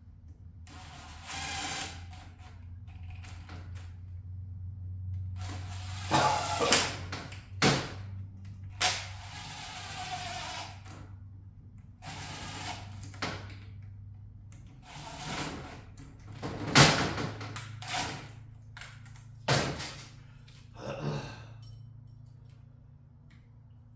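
Cordless drill driving bolts into a motorcycle transmission case in short runs of a second or two, with a few sharp metal clanks between.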